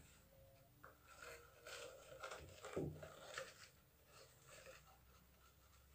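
Faint rustling and scraping of hands reaching into a small glass tank to pick up a baby flying squirrel, with a slightly louder rustle near the middle.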